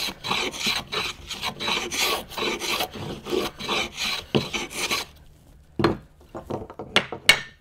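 Metal hand plane shaving a strip of wood in rapid, repeated scraping strokes for about five seconds. It then stops, followed by a few sharp knocks on the bench near the end.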